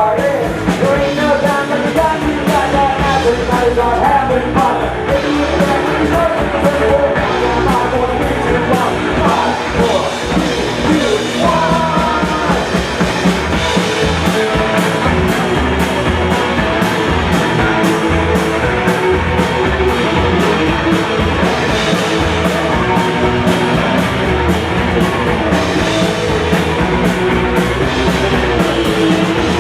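Live rock band playing loud, with drums and guitar, and singing over the first part.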